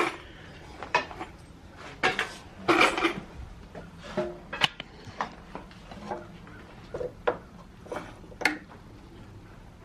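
Irregular clinks and knocks of hard objects being picked up and set down, like dishes or metal items clattering, a few loud ones about two to three seconds in.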